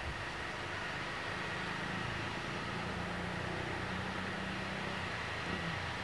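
Engine running steadily: a low drone with a faint, steady high whine over it.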